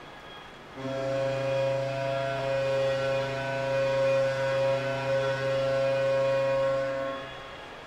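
A single low, steady pitched tone with many overtones, starting about a second in, held for about six seconds and then fading out, over a faint steady background hiss.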